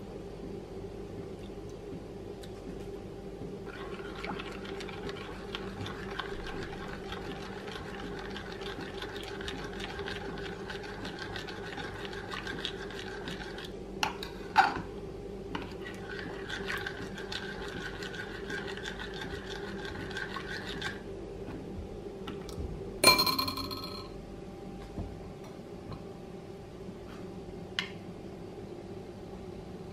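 Spoon stirring thick crepe batter in a china bowl, a steady wet scraping with a couple of small clinks against the bowl, over a steady low hum. A few seconds after the stirring stops, one sharp ringing clink.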